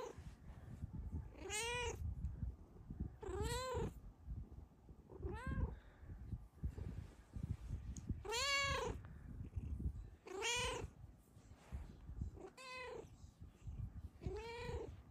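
Snow Lynx Bengal cat meowing about eight times, roughly every two seconds, each meow short and rising then falling in pitch. These are sweet, contented meows from a happy cat.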